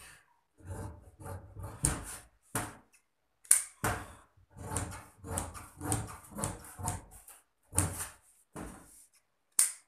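Large tailor's shears cutting through lining fabric, a run of short, uneven snips about two a second.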